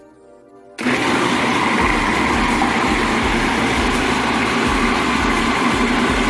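Electric blender switched on about a second in and running steadily at full speed, pureeing fresh tomatoes, garlic and cilantro into a paste.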